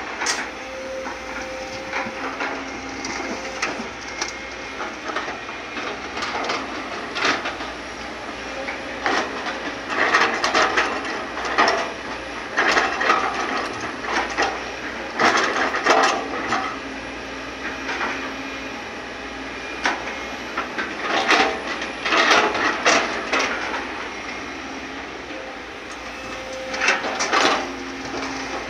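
Sumitomo hydraulic excavator running steadily while it digs and loads. Several bursts of clatter and crunching come from its bucket scraping into soil and rocks and dumping earth into a dump truck's bed.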